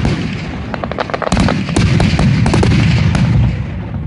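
Aerial fireworks shells bursting in a rapid barrage of booms and sharp crackling reports. The barrage dies down about three and a half seconds in.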